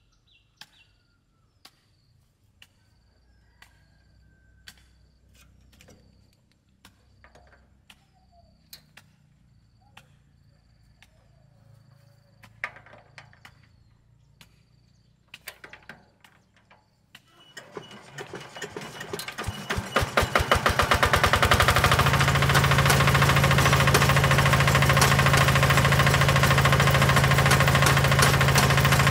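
A walking tractor's single-cylinder diesel engine is turned over near the end of a quiet stretch. Its beats speed up, it catches about 20 seconds in and settles into a steady, rapid-beating run.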